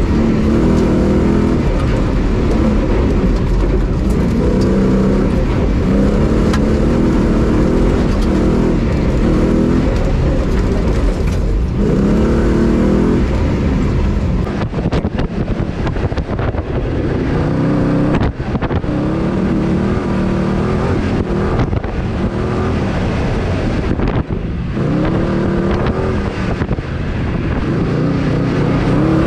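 Off-road competition 4x4 driven hard over a rough dirt track: the engine revs under load, its pitch climbing and dropping again and again with throttle and gear changes, over a steady rumble of the drive.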